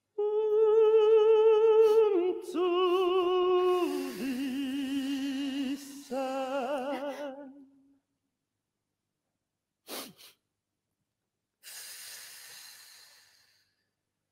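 A woman's voice singing four long wordless notes with vibrato, stepping down in pitch. Then a short sharp sound and a long breathy hiss near the end.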